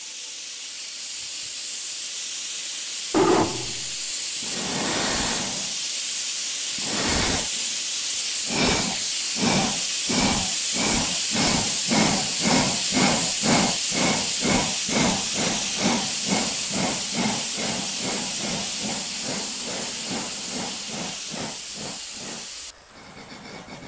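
Steam locomotive getting under way: a steady hiss of steam, then slow, heavy exhaust chuffs from about three seconds in that quicken into a regular beat of about two a second, cutting off suddenly just before the end.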